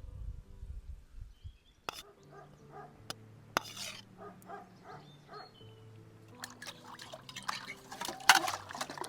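A few sharp clinks, then liquid pouring near the end, over soft steady background music.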